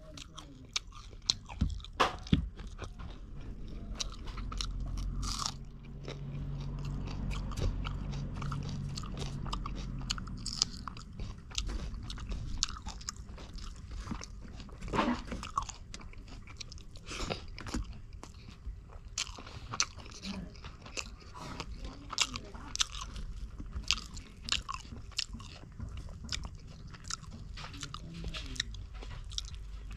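Close-up mouth sounds of someone eating fish curry with rice: crunchy bites and wet chewing, with many short, sharp, irregular clicks and smacks.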